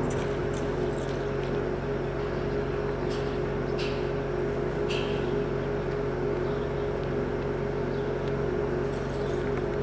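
A steady machine hum with a few hoof strikes of a horse on arena dirt over the first five seconds, as the horse slows.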